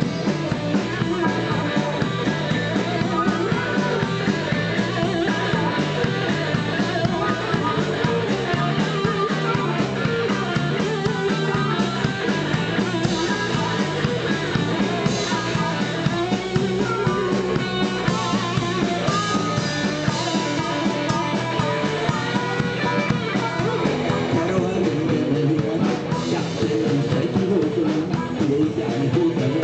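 A blues-rock band playing a song: electric guitar and drum kit with a voice singing over them.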